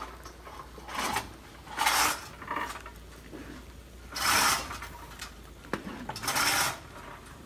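Kitchen utensils scraping and rubbing against cookware in about five short strokes, the loudest a little past the middle.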